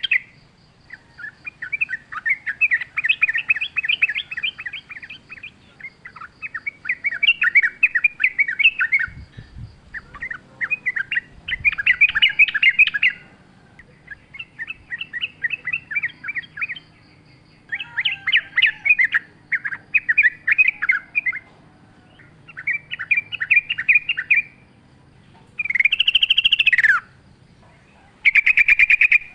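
Yellow-vented bulbul singing in the wild: a run of bubbly, rapid chattering phrases, each a second or two long, with short pauses between them. A faint high repeated note sounds behind it at times.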